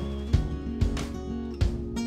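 Background music: acoustic guitar strumming over a steady beat.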